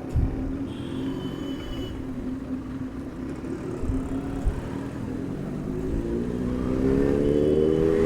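Motorcycle engine running steadily, then accelerating, its pitch climbing over the last two and a half seconds before dropping off sharply.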